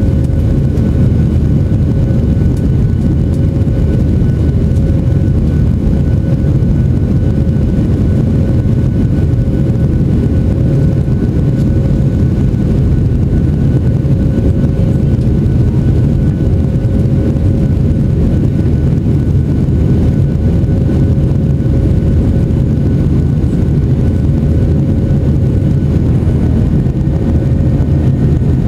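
Boeing 737-700 cabin noise during the climb after takeoff: the CFM56-7B jet engines and rushing air make a steady, loud, low rumble with a faint steady whine on top.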